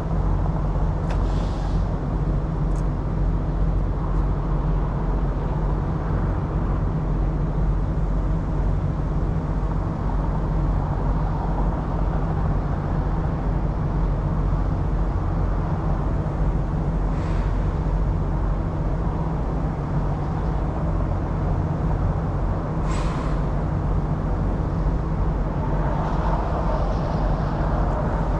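Diesel semi truck engine idling steadily, with a few short hisses of air, the loudest about three-quarters of the way through.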